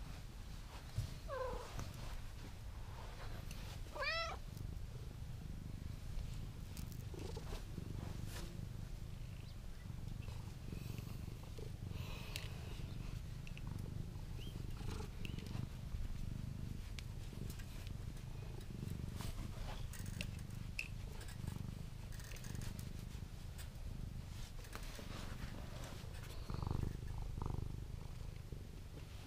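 Black domestic cat purring steadily and close up, with two short meows about one and four seconds in, the second rising in pitch.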